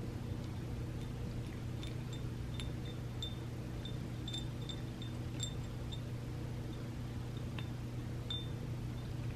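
A cat licking and nosing a hard biscuit treat around a small ceramic saucer: a dozen or so light, irregular clinks that ring briefly, over a steady low hum.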